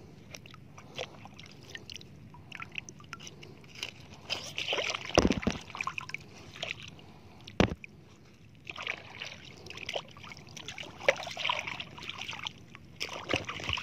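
Shallow seawater sloshing and lapping in small swells, with scattered small clicks and two short, dull thumps about five and seven and a half seconds in.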